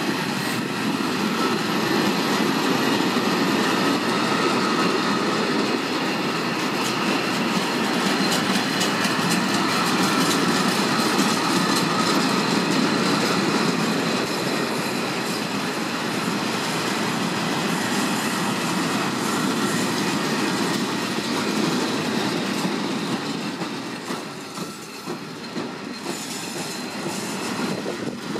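Long freight train of covered wagons rolling past close by: a steady rumble and clatter of wheels over the rails, with a faint high squeal from the wheels. The rumble dips briefly near the end.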